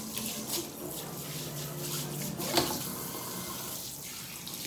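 Kitchen faucet running into the sink while hands are rinsed under it, with a short knock about halfway through.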